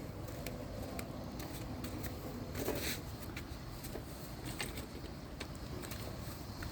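Quiet ambient background: a steady low hum with scattered faint clicks and taps, and one brief louder rustle just under three seconds in.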